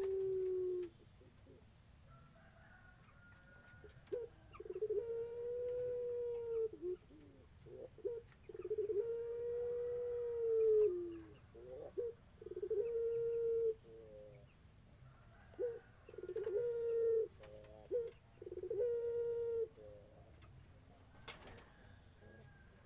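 Puter pelung, a white ringneck dove bred for its long voice, giving a series of about five long, drawn-out coos. Each note is held for one to two seconds, arching slightly and dropping at the end, with short pauses between. A single click comes near the end.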